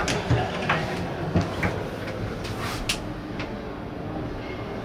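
A wooden yacht cabin door being opened by its handle: several short latch clicks and knocks in the first three seconds, over a steady low background hum.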